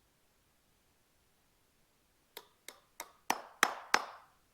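Hammer driving a nail through a wooden hat brim into the log snowman's head: six sharp blows about three a second, starting a little over two seconds in, the last ones the loudest.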